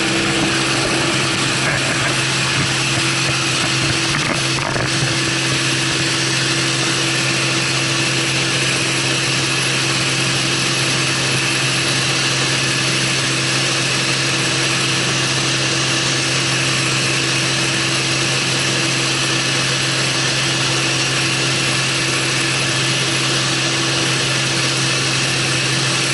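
Steady drone of a single-engine light aircraft's piston engine and propeller, with wind rush, heard inside the cabin in flight. It holds one unchanging pitch throughout.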